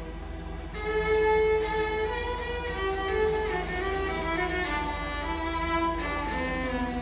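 String orchestra of violins and cellos playing a melody of held, bowed notes, swelling louder about a second in.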